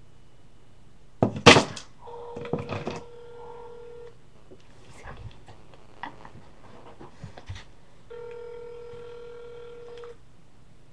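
Ringback tone of an outgoing phone call. The tone rings twice, about two seconds each and about four seconds apart. Before it, a second or so in, there are a few loud knocks, which are the loudest sound here.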